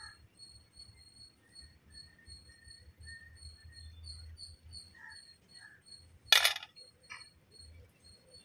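A steel ladle clanks against a steel gravy pot about six seconds in, with a couple of fainter clinks and scrapes around it. A faint, pulsing high-pitched chirp sounds in the background.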